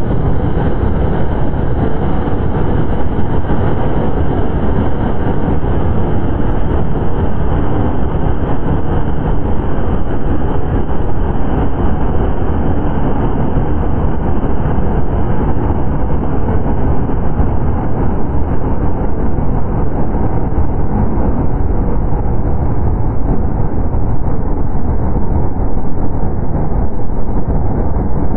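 A loud, unbroken wall of distorted electronic noise, heaviest in the bass, with no clear notes or beat. Its top end slowly grows duller over the whole stretch, as if a filter were closing.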